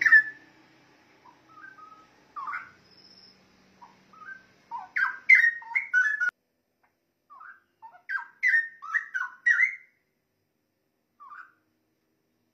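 Straw-headed bulbul (cucak rowo) singing: short phrases of rich, quick whistled notes that slide up and down, coming in separate bursts with pauses of a second or two between them.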